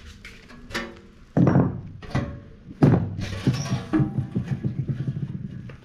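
Three heavy thunks and scrapes of something hard being handled, then a fast rattling run of low knocks that stops near the end.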